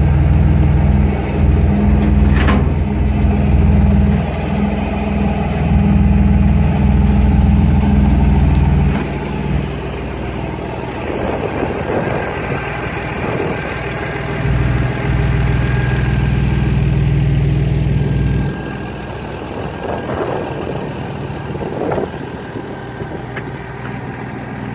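Rat rod's carburetted engine idling, with a heavy low rumble that drops away about nine seconds in, returns for a few seconds, and drops again near eighteen seconds.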